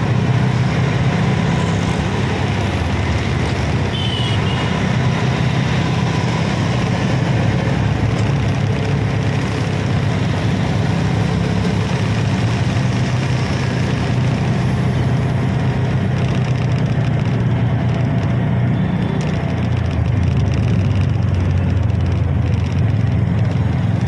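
Auto rickshaw's small engine running steadily while riding through traffic, with road noise. There is a brief high chirp about four seconds in.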